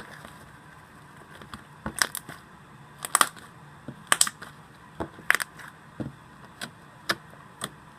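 Fluffy slime being squished and stretched by hand, giving sharp sticky pops and clicks at irregular intervals, roughly one a second.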